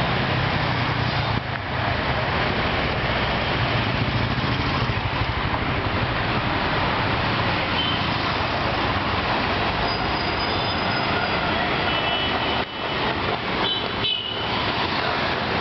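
Dense city street traffic: a steady wash of engines and tyres, with a heavy vehicle's low engine hum in the first few seconds and short high-pitched horn toots in the second half.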